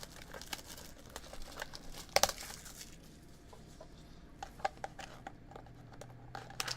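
Sports cards and plastic packaging being handled: scattered crinkling and small clicks, with one sharper click about two seconds in.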